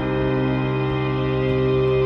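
Background music: one sustained chord held steady without change.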